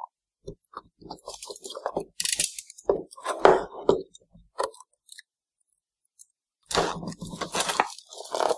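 Crinkling and rustling of a small cardboard product box and its wrapping as it is slit with a utility knife and pulled open by hand. It comes in irregular bursts, then pauses, then a longer stretch of handling near the end as the box comes open.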